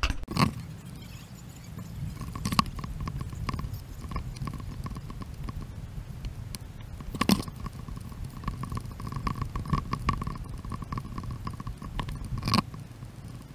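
Footsteps and handling noise from a camera carried along a dirt hiking trail: a low rumble with irregular crunching and four sharp knocks.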